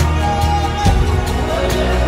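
Background music with a steady beat, about two beats a second, over a deep, sustained bass.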